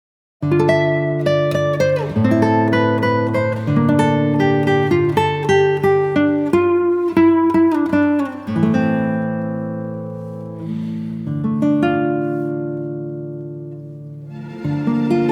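Background music: an acoustic guitar picking a melody, starting about half a second in, with notes that ring out and die away.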